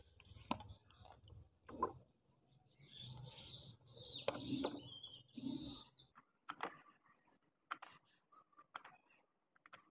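Faint handling sounds of a plastic syringe drawing water and squirting it into a motorcycle battery's cells to flush out rust: scattered light clicks and squeaks, with a hissing squirt of a few seconds near the middle.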